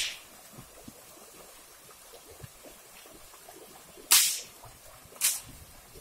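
Cattle wading through a shallow, muddy river, with quiet sloshing and dripping of water around their legs. Two short, sharp bursts of noise come about four and five seconds in.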